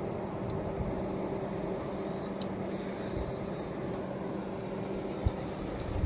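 Steady rush of a fast-flowing river over rapids, with a few faint clicks and one low thump near the end.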